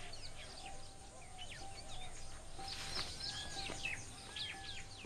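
Birds chirping and calling, many short quick notes and whistles from several birds overlapping, with a couple of longer arching calls in the second half.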